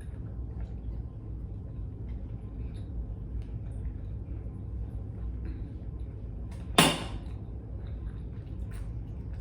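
Close-up eating sounds: small scattered chewing and mouth clicks over a steady low hum. About seven seconds in comes one short, loud rushing burst.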